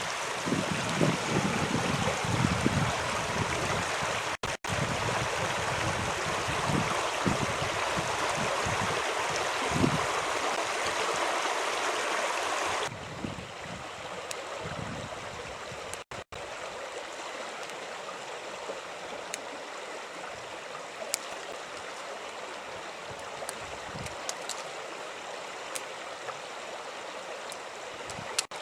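Creek water running steadily, with low thumps and rumble in the first half. The water sound drops to a quieter level about 13 seconds in and runs on with a few faint clicks.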